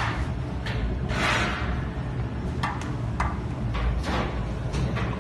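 Jewelry laser welding machine humming steadily, with several short sharp clicks and a brief hiss about a second in.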